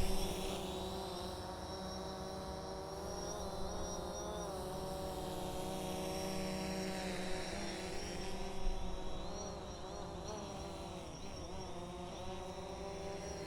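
DJI Mavic Mini quadcopter drone in flight: a steady, many-toned propeller buzz whose pitch wavers up and down, more so in the second half.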